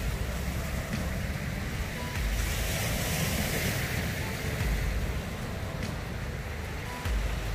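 Wind buffeting the microphone in low rumbling gusts over the wash of sea waves on a rocky shore. The hiss of the surf swells about two seconds in and eases off a couple of seconds later.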